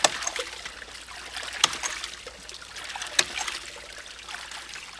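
Hydraulic ram pump's waste valve clicking shut three times, about a second and a half apart, with water spilling and splashing from the valve between the clicks.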